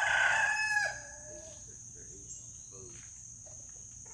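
Rooster crowing: the tail of a loud crow that ends with a falling note about a second in. A faint steady high cricket trill carries on underneath.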